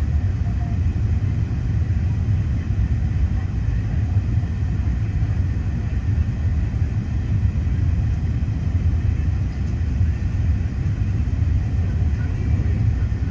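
Airbus A380 cabin noise: a steady low rumble that stays even throughout.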